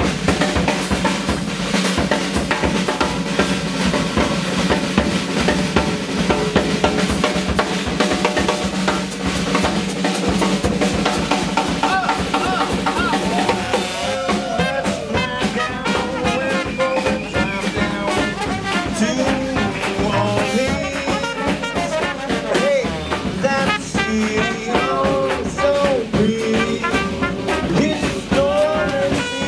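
Live small swing band playing. A Gretsch drum kit keeps a busy beat with snare rimshots and cymbals, and from about halfway a trumpet and vocal melody come in over the drums.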